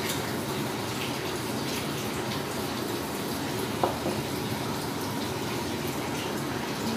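Steady rushing noise like running water, with one sharp click about four seconds in.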